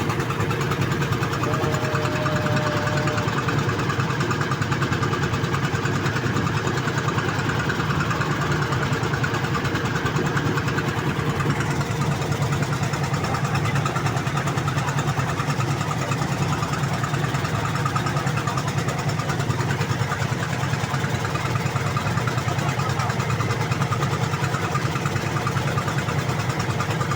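An engine running steadily at idle, an even, unchanging drone.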